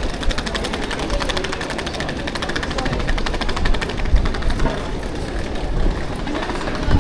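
A machine running with a fast, even mechanical rattle over general street rumble, with a couple of low thumps about four seconds in and near the end.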